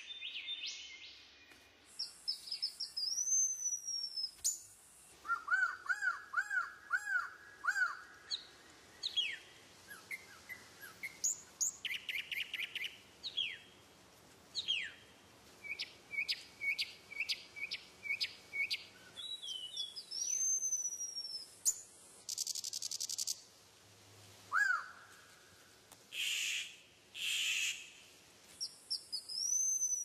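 Songs and calls of several different birds in turn: clear slurred whistles, fast trills and buzzy phrases, and runs of sharp falling notes, with short pauses between phrases. One slurred whistled phrase comes back three times, near the start, about two-thirds through and at the end.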